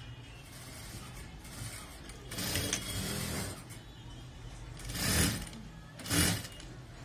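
JACK industrial sewing machine stitching in short runs: a longer run about two seconds in, then two brief bursts near the end.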